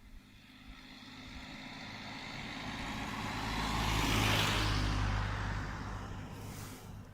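A motor vehicle passing by: its engine and tyre noise grow louder, peak about four seconds in, then fade away.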